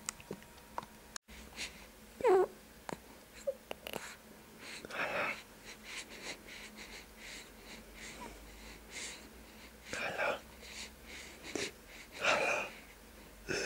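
Newborn baby's wheezy breaths and snuffles close to the microphone, with a short falling squeak about two seconds in and small clicks between.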